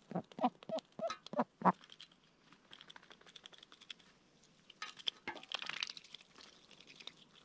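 Mixed-breed Indian runner ducks quacking, about six short calls in quick succession over the first two seconds. Then a duck dabbling its bill in a shallow metal tray of water, making a rapid run of wet clicks and splashes.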